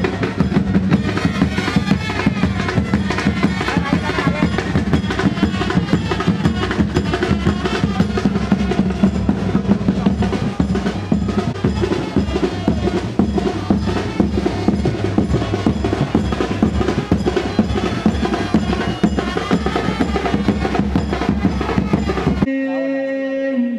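Fast, loud drumming with rolls over a steady low tone. It cuts off suddenly near the end and gives way to a held, pitched sound.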